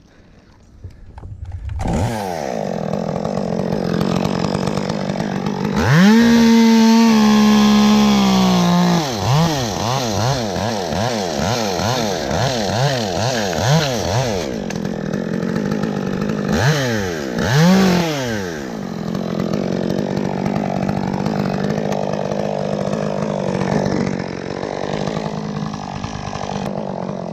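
Chainsaw starting up about two seconds in and running loud, revved high for a few seconds, then cutting into cypress wood with its engine pitch repeatedly dipping and rising, with another dip and rise a little past halfway.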